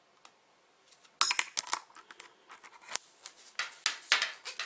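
Plastic cable ties clicking and scraping as a zip tie's tail is worked into another's locking head to shim the pawl open and slide the tie off. A quick irregular run of sharp clicks and short rasps starts about a second in.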